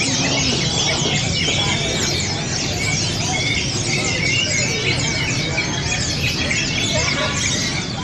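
Many caged competition songbirds singing at once: a dense, unbroken chorus of fast overlapping chirps, whistles and trills.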